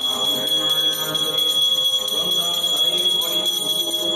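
Brass puja hand bell rung continuously, giving a steady high ringing tone with faint repeated strikes.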